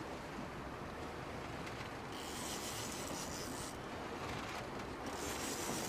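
Big-game fishing reel being worked during the fight with a giant trevally: low steady noise with two stretches of hiss, about two seconds in and again near the end.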